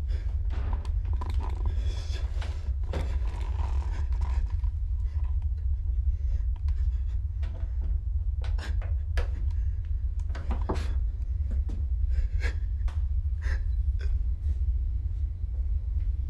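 A steady low rumble under a person's heavy, breathy panting in the first few seconds, then scattered small clicks and knocks of handling.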